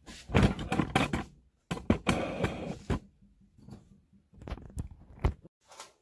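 Handling noise from working on an open microwave oven: irregular knocks, rattles and scraping in a few clusters, with several sharp clicks about four and a half to five seconds in.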